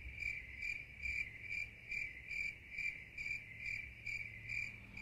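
Cricket chirping, a steady high chirp repeating about three times a second.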